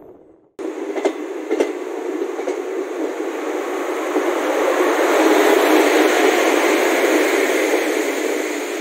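Rushing rail noise as a goods train of covered wagons passes close on the next track, heard from a moving passenger train. The noise starts abruptly just after the opening, with a couple of sharp clicks soon after, and grows louder midway as the wagons go by.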